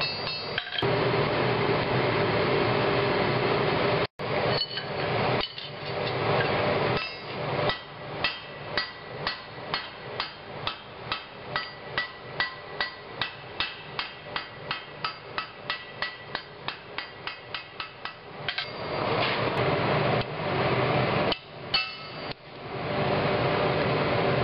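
Blacksmith's hand hammer striking stainless steel on an anvil: a long run of quick, even, ringing blows, about two to three a second, for some ten seconds. Before and after the hammering there is a steady rushing noise with a few abrupt breaks.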